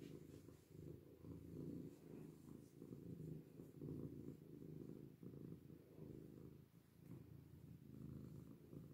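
Domestic tabby cat purring softly as its belly is stroked, a low rumble that swells and eases with each breath, about once a second.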